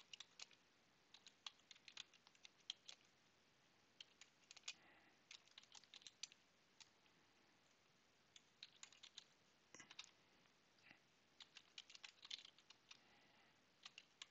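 Faint computer keyboard typing: short runs of keystroke clicks separated by pauses of a second or so.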